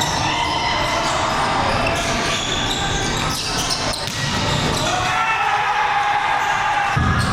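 Indoor volleyball game: ball hits and bounces, with players' voices, echoing in a large gym hall.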